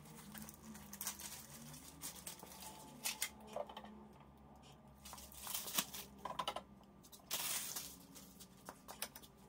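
Quiet handling noises: scattered light clicks and knocks with brief rustles, as parts and packaging are moved about on a cabbing machine. A longer rustle comes about three-quarters of the way through.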